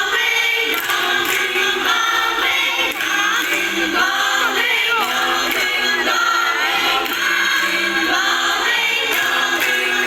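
A choir singing, full and loud, its voices entering just before the start and carrying on steadily.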